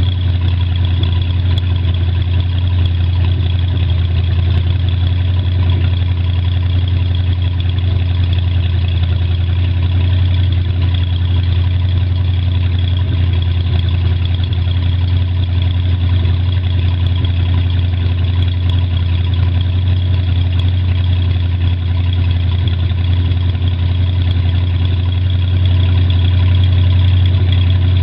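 OMC Cobra marine engine idling steadily on a test run after repair of freeze damage from not being winterized.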